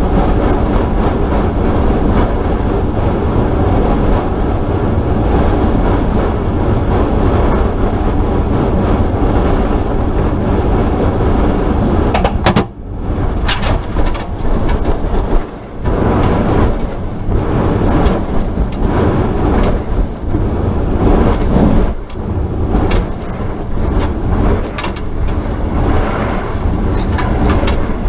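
Loud, steady rush and rumble of air buffeting an on-board camera in the Starliner capsule as it falls under its drogue parachutes. About twelve seconds in, near when the drogues are let go, the noise cuts out sharply for a moment, then comes back gustier and more uneven.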